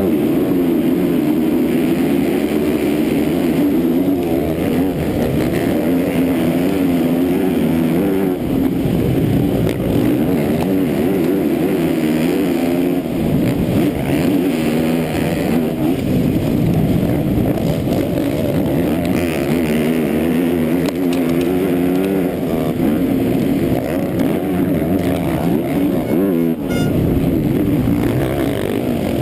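Four-stroke motocross bike engine at hard throttle, its pitch rising and falling through gear changes, heard up close from the rider's helmet, with other race bikes around it off the start. The engine note briefly drops about 26 seconds in.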